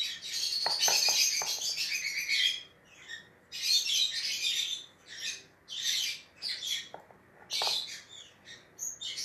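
A bird chirping and twittering in repeated short bursts, with a few knocks about a second in and once more near the end.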